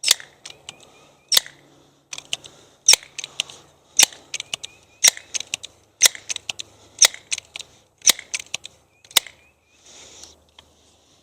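Pellet pistol fired over and over, about one sharp crack a second, nine shots in all, each followed by a few smaller clicks.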